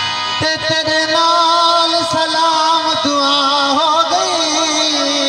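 A man sings a long held note over steady harmonium accompaniment. The sung note comes in about half a second in and wavers in pitch near the end.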